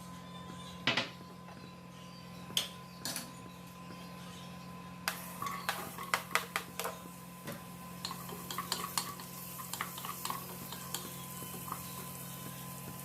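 Kitchen work: a knife and utensils clicking and knocking against a board and pots, sparse at first, then in a quick run of clatter from about five seconds in, over a steady low hum.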